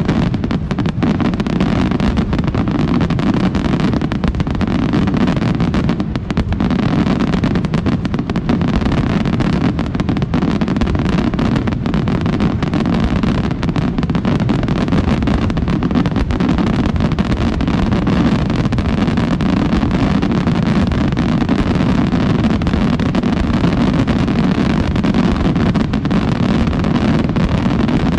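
Fireworks going off in a dense, unbroken barrage of bangs and crackles that merge into one continuous loud rumble.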